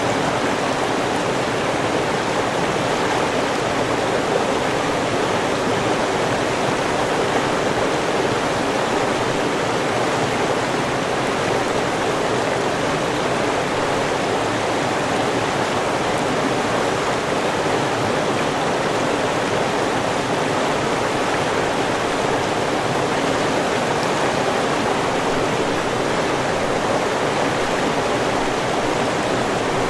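River water flowing and rushing steadily over rocks, an even, unbroken noise with no change.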